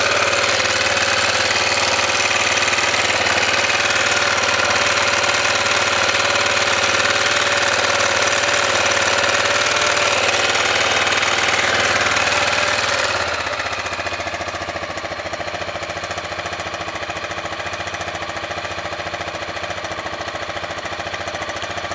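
Honda NX650 single-cylinder engine running with a knock in it, of a cause the owner is asking about; it runs louder and busier at first, then settles to a lower, quieter running about halfway through.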